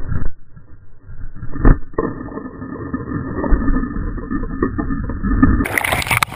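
Water rushing and churning against a camera dragged through the sea by a crashed kite, muffled, with a heavy splash at the start and another thud under two seconds in. Just over five seconds in the sound opens up into loud splashing and sloshing as the camera breaks the surface.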